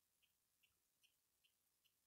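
Near silence with a faint, regular ticking, about two and a half ticks a second.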